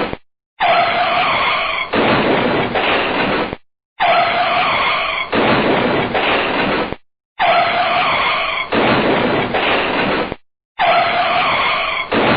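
A car braking hard, its tyres squealing and skidding, repeated four times with a brief silence between. Each time it opens with a high squeal that turns into a rough skidding hiss before it stops.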